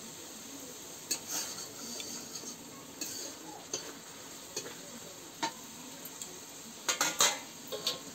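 Spice paste and tomatoes sizzling steadily in oil in a steel karahi while a metal spoon stirs and scrapes, clinking against the pan now and then. The loudest clatter comes near the end.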